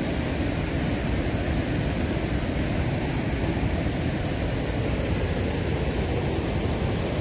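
Wind buffeting the microphone beside a flowing river: a steady rushing noise with a heavy, unsteady low rumble.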